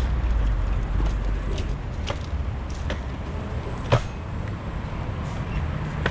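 Rental electric scooter rolling over cobblestones: a steady low rumble with scattered sharp clacks, the loudest about four seconds in.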